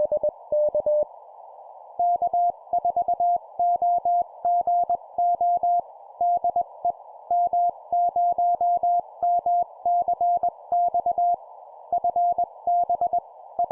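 Morse code (CW) tones keyed at about 20 words per minute over a steady hiss of band noise. One station's signal at a lower pitch ends about a second in, and after a short pause a second station answers at a slightly higher pitch.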